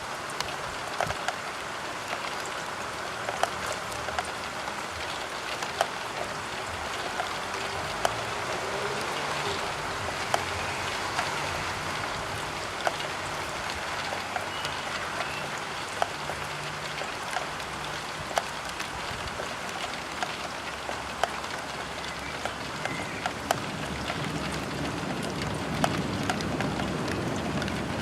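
Steady spring rain pattering on a roof window, with single heavier drops ticking sharply on the glass about once or twice a second. A faint low hum comes and goes underneath.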